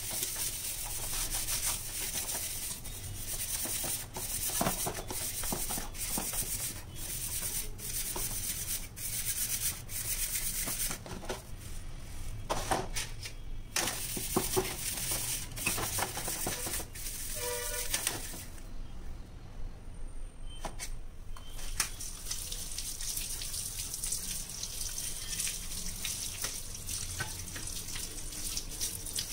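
Steel wool scrubber rubbing back and forth over a soapy metal kitchen-chimney baffle filter, a rough scratchy scrubbing in quick strokes, with water sloshing in a plastic tub. Near the end the tap runs as the plate is rinsed in the sink.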